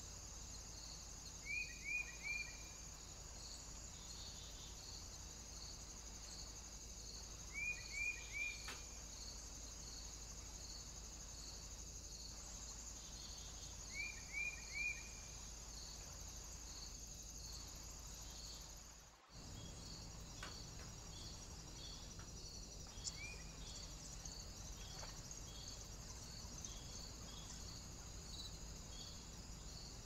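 Faint steady chorus of insects such as crickets, with a regular pulsed chirping about twice a second. Over it a small bird gives a short three-note call three times in the first half and once more later, and the sound briefly drops out about two-thirds through.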